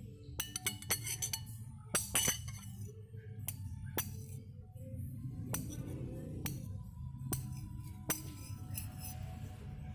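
Spoons clinking against bowls during a meal of bakso, a dozen or so sharp ringing clinks, several in quick succession near the start and around two seconds in, then scattered singly. Music plays underneath.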